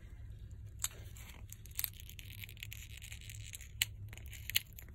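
Cured resin being peeled away from its mold: a faint peeling rasp broken by scattered small crackles and clicks.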